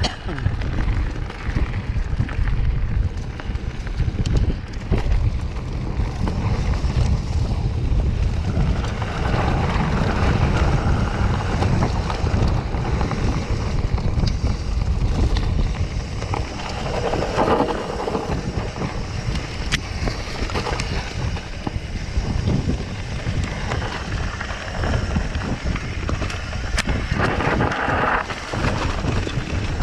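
Wind buffeting the microphone as a mountain bike rolls fast down a dirt forest trail, with tyre rumble over dirt and leaf litter and small rattles and knocks from the bike. A few louder rushes of rustling come around the middle and near the end.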